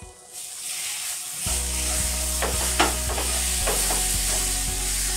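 A thick green pigeon pea filling frying in a non-stick pan, sizzling steadily from a moment in, while a wooden spatula stirs and scrapes through it with a few short scrapes and knocks midway.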